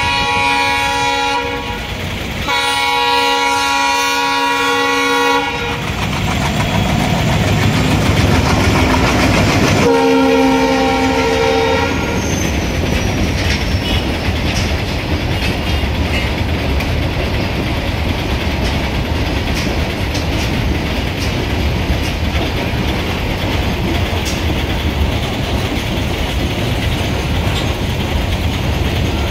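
ALCO diesel locomotive hauling a goods train at speed, sounding its multi-tone horn in three blasts: one at the start, a longer one from about 2.5 to 5.5 seconds, and another about ten seconds in. Its engine rumble is loudest as it passes, around 6 to 12 seconds. From about 12 seconds on comes a steady rumble of goods wagons rolling past, clattering over the rail joints.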